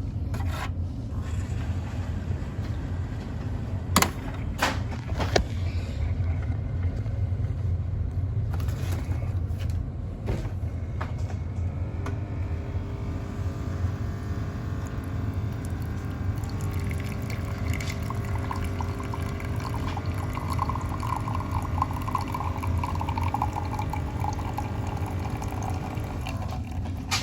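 Bosch Vero Barista coffee machine running with a steady low hum and water pouring, with a couple of sharp clicks early and a buzzing, tonal whine that sets in partway through and stops abruptly near the end.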